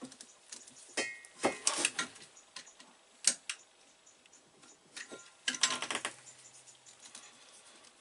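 Irregular clicks, taps and rustling of hands and a blade working at a cable's plastic sheath, stripping it back to get at the inner cores.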